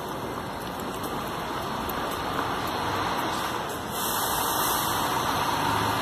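Diesel intercity coach running as it pulls away and drives past, a steady engine rumble with a hiss that gets louder about four seconds in.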